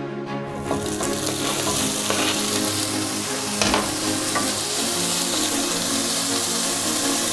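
Diced pork belly sizzling as it fries in a pan, stirred with a wooden spatula, its fat rendering out. The sizzle starts about half a second in, with one sharp knock midway and background music underneath.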